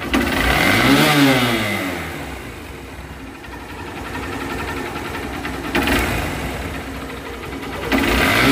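Hero Hunk 150R's single-cylinder engine idling and being revved by hand: one full rev rising and falling in the first two seconds, a short blip later on, and another rev starting near the end. It runs cleanly after top-end repair for a rattling noise from the cylinder head, a perfect sound.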